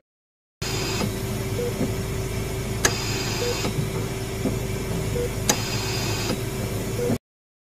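Mechanical ventilator running: a steady machine hum and hiss with a short beep about every two seconds and two sharp clicks, starting and stopping abruptly.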